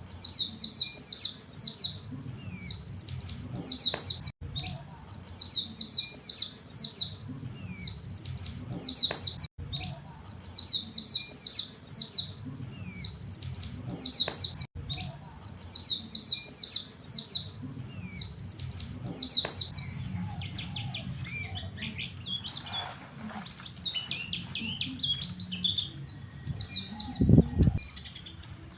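White-eye (pleci) twittering nonstop in the rapid 'ngriwik' style: quick high chirps in runs of about five seconds with brief breaks between them, turning softer and sparser in the last third. A short low thump comes near the end.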